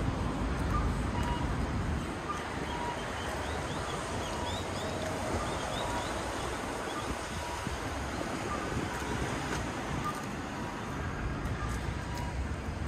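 Outdoor street ambience of steady road traffic, with a passing vehicle's low rumble fading in the first couple of seconds. A few faint high chirps come through in the middle.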